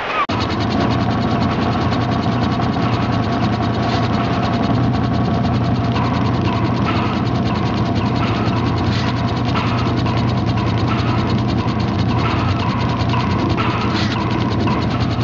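Machinery running steadily: a fast, even clatter of clicks over a low hum, with a knock repeating about once a second.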